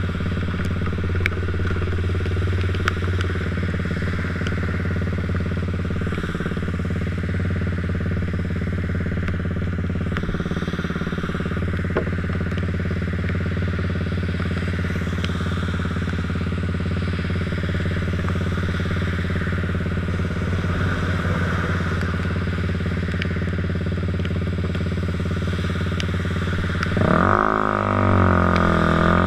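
Motorcycle engine idling steadily, then revving up as the bike pulls away about 27 seconds in.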